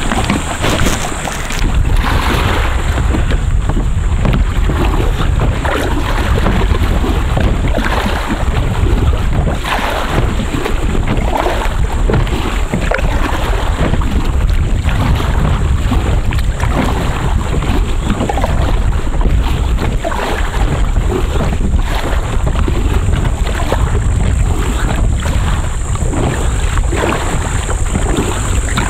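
Wind buffeting the microphone over water splashing and sloshing around a kayak, in irregular splashes every second or two, with a steady high-pitched whine.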